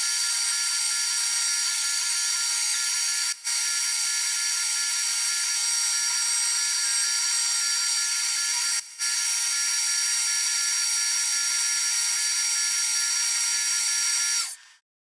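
Tormach PCNC 770 CNC mill spindle running while a small end mill cuts a rectangular opening in an enclosure box: a steady high whine with cutting hiss. It drops out for a moment twice, about three and a half and nine seconds in, and cuts off suddenly near the end.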